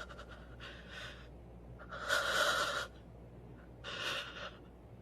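A person breathing heavily: three long, noisy breaths about a second and a half apart, the middle one loudest.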